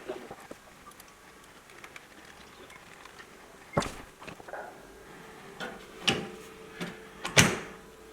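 A few sharp clicks and knocks of a graphics card's metal mounting plate and its screws being handled and fitted into a PC case. They come at irregular intervals, and the loudest knock is near the end.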